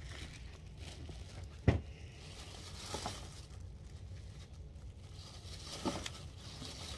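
A plastic action figure being handled and turned in the hands, with faint rustling and crinkling. There is one sharp click about two seconds in and two softer clicks later.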